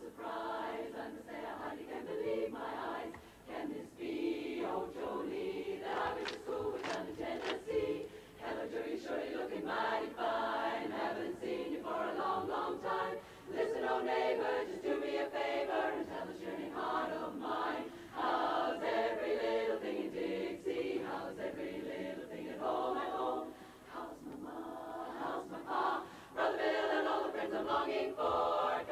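Large women's barbershop chorus singing a cappella in four-part close harmony, the sung phrases broken by a few short pauses.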